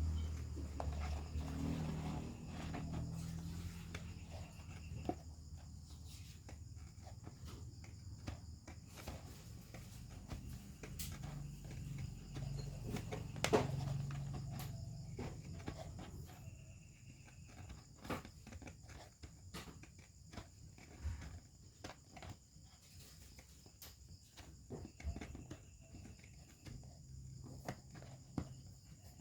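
Scattered light clicks and taps from handwork, with one sharper click about halfway through, over a steady high chirring of crickets.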